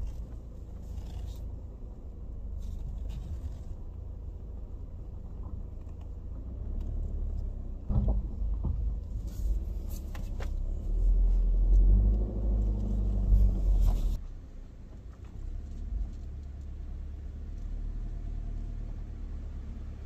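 Subaru Outback being driven slowly while turning around, a steady low rumble that grows louder for a few seconds past the middle, then drops back.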